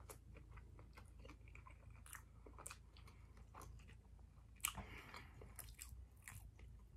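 Faint chewing of a mouthful of sushi with the mouth closed: a string of soft, irregular mouth clicks, one louder click about four and a half seconds in.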